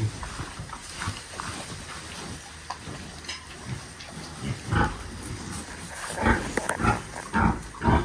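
Pigs grunting, with a few short, rough grunts coming closer together in the second half.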